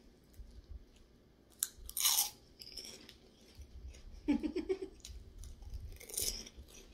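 Crunching and chewing on crispy puffed pork rinds, with loud crunches about two seconds in and again near the end.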